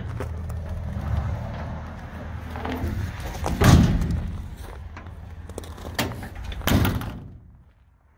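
Steel compartment door of an old fuel tank truck banging shut: a loud metal slam about three and a half seconds in, a lighter knock, then another slam a few seconds later, over a low rumble at the start.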